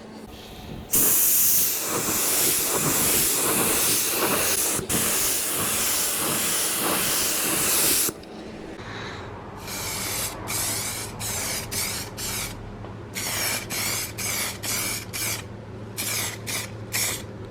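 Compressed-air spray gun spraying primer. First comes one long continuous hiss with a brief break. From about halfway it turns into a run of short trigger bursts, one or two a second.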